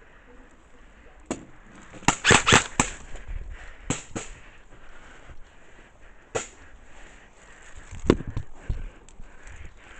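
Airsoft guns firing: a single shot, then a quick string of about five shots a couple of seconds in, followed by scattered single shots.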